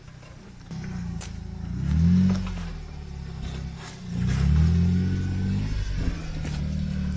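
Off-road 4x4 engine revving in two surges as it climbs, the pitch rising about two seconds in and again about four seconds in, with a few sharp knocks.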